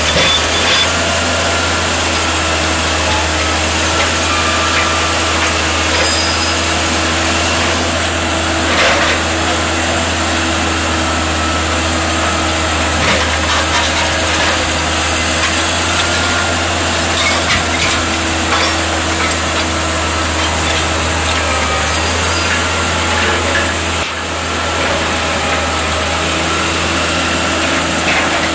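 Heavy diesel engine of a crawler crane running steadily, a deep low hum with a steady droning tone above it. There are a few faint knocks.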